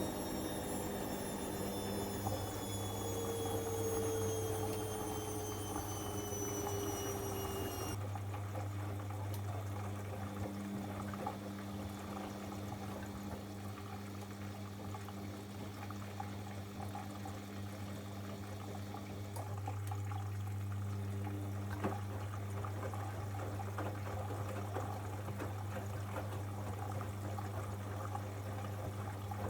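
Bosch Avantixx 7 washing machine mid-wash: water splashing in the drum over a steady hum. A falling motor whine stops about eight seconds in as the drum slows.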